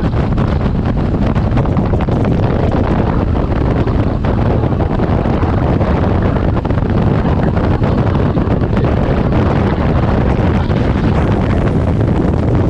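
Strong wind blasting across the microphone: a loud, steady rush that is heaviest in the low end and never lets up.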